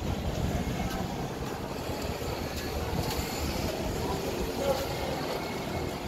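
Steady city street noise, the sound of road traffic, with faint distant voices.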